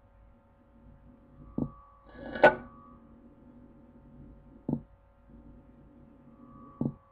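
Radio scanner between transmissions: a faint steady hum broken by four short clicks, the loudest a brief burst of static about two and a half seconds in.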